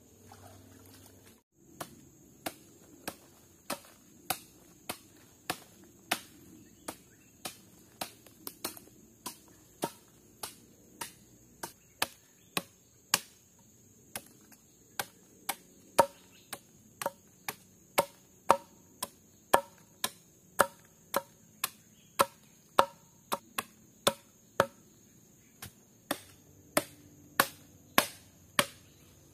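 Steady, even chopping: sharp blade strikes, about one and a half to two a second, as of a knife cutting food on a board.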